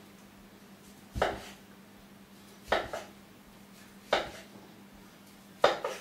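Kitchen knife slicing through a skinned haggis and knocking on a wooden chopping board, four strokes about a second and a half apart.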